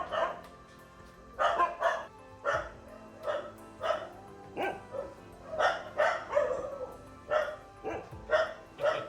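A dog barking repeatedly, in short barks spaced about half a second to a second apart.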